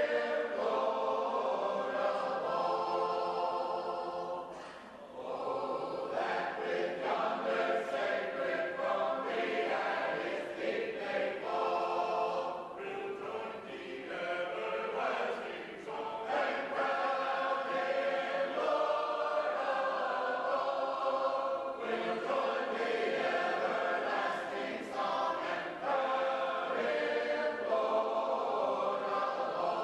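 A group of singers singing a shape-note hymn unaccompanied, in harmony, with a brief drop in the singing about five seconds in.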